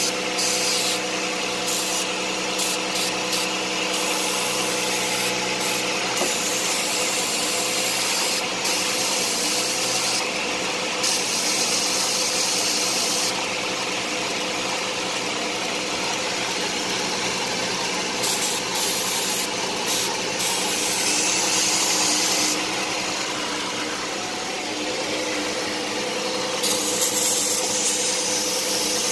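2011 VW Routan's 3.6-litre V6 running at a fast idle while an aerosol can of brake cleaner hisses in repeated squirts of a few seconds each around the intake, a test for a vacuum leak. The idle holds steady under the spray, so no air leak shows up.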